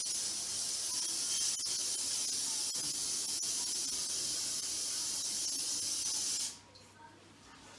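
Lysol aerosol disinfectant spray can sprayed in one long, steady hiss that cuts off suddenly about six and a half seconds in.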